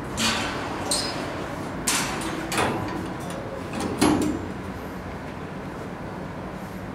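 Stainless-steel kennel cage door and its latch being handled and opened: five sharp metal knocks and rattles, the loudest about four seconds in, then only a steady background hum.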